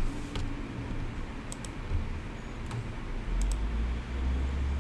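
A few light, sharp clicks, scattered irregularly, over a low rumble.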